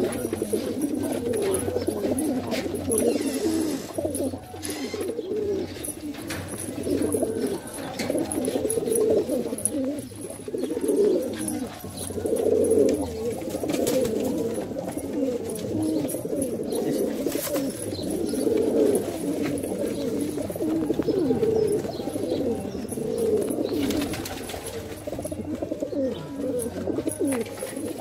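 Several Madrasi pigeons cooing, their low coos overlapping without a break.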